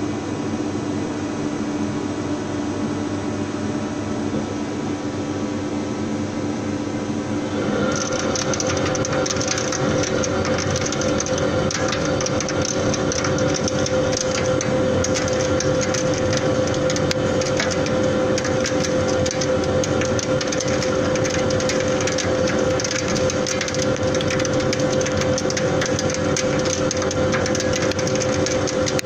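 CNC lathe turning metal: a steady machine hum that, about eight seconds in, shifts to a louder, higher steady tone with a dense crackling hiss and stays that way.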